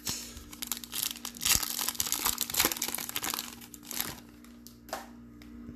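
Plastic trading-card packaging being torn open and crinkled: a dense crackling for about four seconds that thins to a few scattered crinkles near the end.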